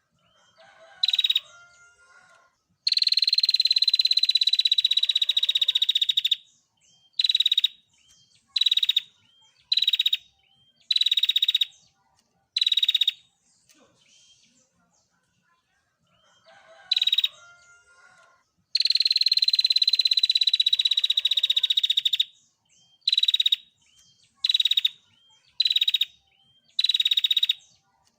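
Female prinia (prenjak) giving its rapid trilling call: one long trill of about three seconds, then a run of short trills about a second apart, the whole sequence heard twice.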